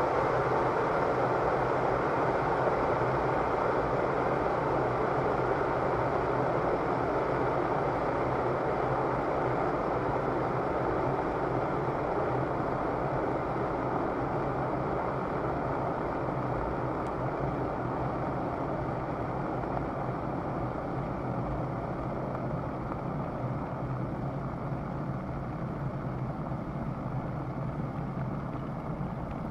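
Electric kettle with water at a rolling boil: a dense, steady rushing bubble noise that slowly gets quieter.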